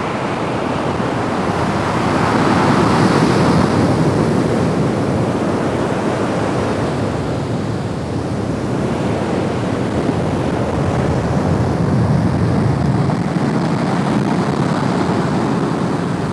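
Ocean surf breaking on a sandy beach: a continuous rush of waves that swells twice.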